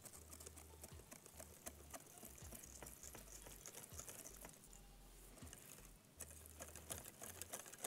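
Wire whisk beating pancake batter in a glass bowl: faint, irregular light clicking of the wires against the glass, with a quieter stretch just past the middle.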